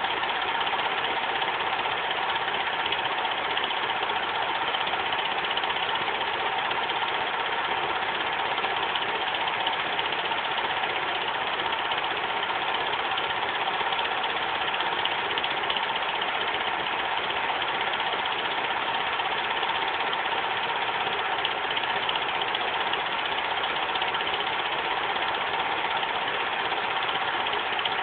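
Bell & Howell dual 8 film projector running Super 8 film: a steady, even mechanical whir of its motor and film transport, with a steady tone near 1 kHz in it.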